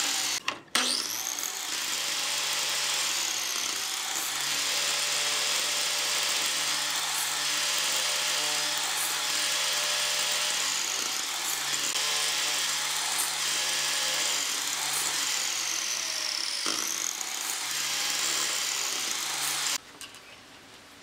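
Electric mitre saw running and cutting thin strips off a wooden block. After a brief break about half a second in, the motor spins back up with a rising whine, and the whine dips and recovers a few times during the cuts. The sound cuts off shortly before the end.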